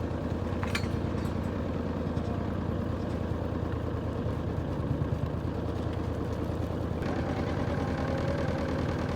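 An engine running steadily with an even, rapid pulse.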